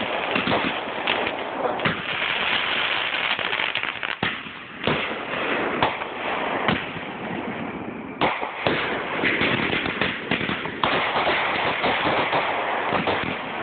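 Fireworks finale: aerial shells bursting in quick succession, a dense run of sharp bangs with the noise of the display filling the gaps between them.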